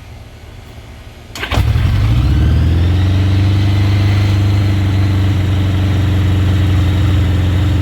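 1983 Honda Gold Wing GL1100's flat-four engine being started cold: a brief crank about a second and a half in, then it catches, rises a little in pitch and settles into a steady idle.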